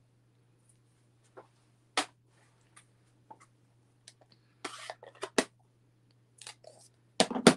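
Plastic Stampin' Up! ink pad case and other craft supplies being handled on a desk: scattered light clicks and taps, a brief scrape about halfway, and the sharpest clicks near the end as the case is closed and set down.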